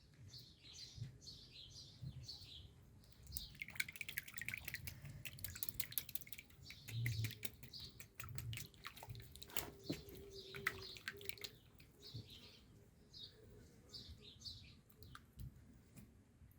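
A sparrow chirping over and over in short, high, falling chirps, with a run of sharp clicks and drips of water through the middle.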